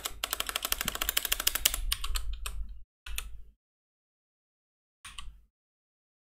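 Computer keyboard typing: a rapid run of keystrokes for about three seconds, then two short bursts of keys, as Chinese text is typed into a search box.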